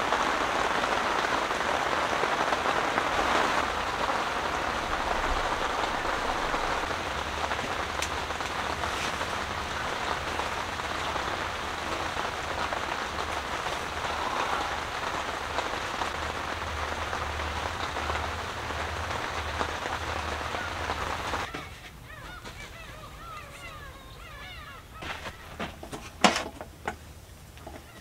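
Steady rain falling on the tent's fabric, heard from inside the tent, until it cuts off suddenly about three-quarters of the way through. After that, faint bird calls and a few light knocks from things handled on a table.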